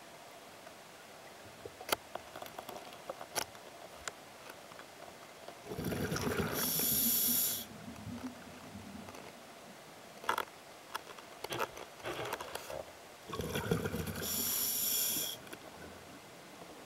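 Scuba diver breathing through a regulator underwater: two breaths about seven seconds apart. Each is a low rasping rush that turns into a loud hiss and lasts about two seconds. Sharp clicks and crackles come in between.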